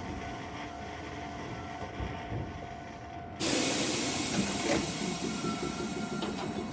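Iyotetsu 700 series electric train at the station, humming steadily, then a sudden loud hiss of compressed air about three and a half seconds in that keeps going, with a thin whine joining it a little later.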